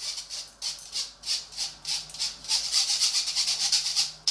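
Spoon rubbing flour and cocoa powder through a fine mesh sieve: rhythmic scratchy strokes, about three a second, a little quicker toward the end.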